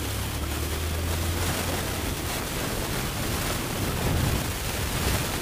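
Honda CG 160's single-cylinder four-stroke engine running at low road speed under heavy wind rush on the microphone. The engine's low hum is plainest for the first second and a half, then sinks back under the steady wind noise.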